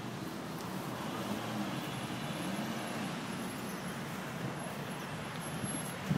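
Steady road traffic noise from a busy multi-lane road, with no sharp events.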